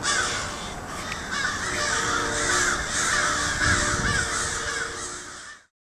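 A flock of crows cawing all at once, many overlapping harsh caws. It cuts off suddenly near the end.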